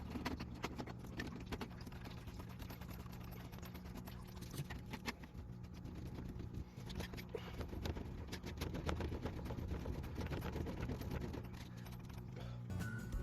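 A drain-cleaning tool working inside a clogged hard-plumbed aquarium drain pipe, with irregular clicks and knocks over a steady low hum.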